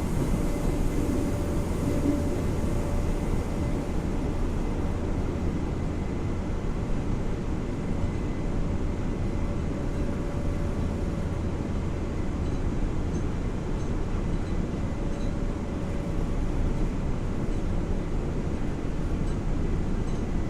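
Steady running noise inside a Nagoya subway 3050-series car: a low rumble with a steady hum over it from the ceiling ventilation fans.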